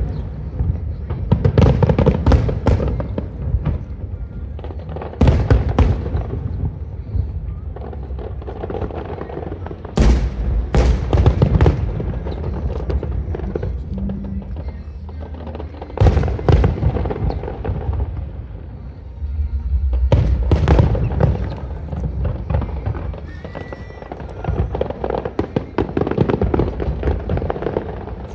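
Aerial fireworks display: repeated deep booms of bursting shells, each followed by dense crackling. The loudest bursts come about a second in and again near five, ten, sixteen and twenty seconds in.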